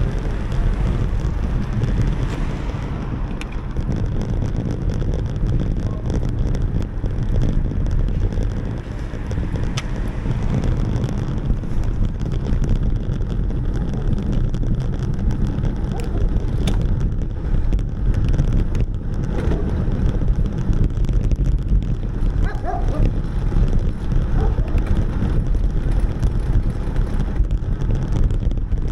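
Wind buffeting an action camera's microphone while riding: a steady, loud low rush of wind noise.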